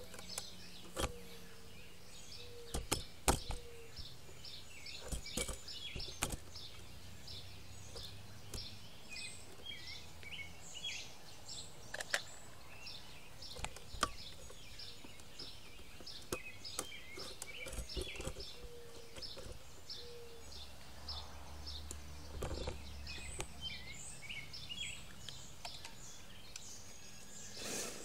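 Outdoor ambience of high, rapid chirping repeating a few times a second, with scattered sharp clicks and knocks.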